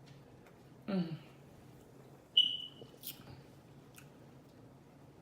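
A short, low burp with a falling pitch about a second in, then a sharp, high ringing clink near the middle and a brief crackle just after.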